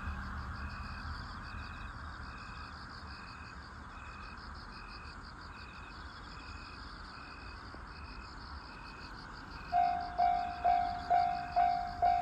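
Insects chirping in a steady rhythm, about two chirps a second, over a high pulsing buzz. About ten seconds in, a railway level-crossing warning bell starts, a loud electronic ding repeating about twice a second, signalling an approaching train.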